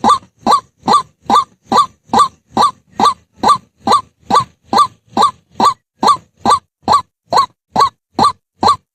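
White-breasted waterhen calling: short notes repeated at an even pace, a little over two a second, each with a quick rise and fall in pitch.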